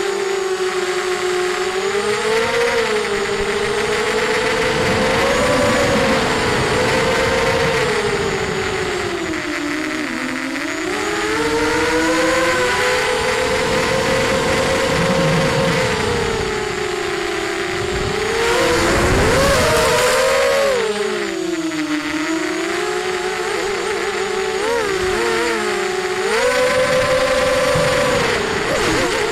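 ZMR250 FPV racing quadcopter's brushless motors and 5x4 HQProp propellers whining, the pitch rising and falling again and again with the throttle, heard from the onboard camera. A brief noisy rush cuts in about two-thirds of the way through.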